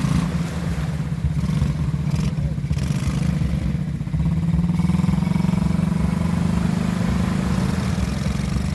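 ATV engine running steadily, getting a little louder about halfway through as it picks up.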